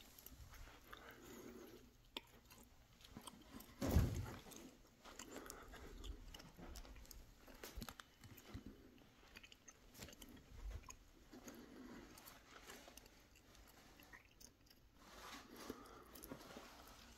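Faint rustling, clicks and handling noise from a phone being carried and moved around by hand, with one louder thump about four seconds in.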